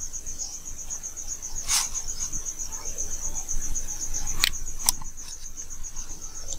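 A high-pitched, steadily pulsing trill runs throughout, with a few sharp clicks about two, four and a half and five seconds in.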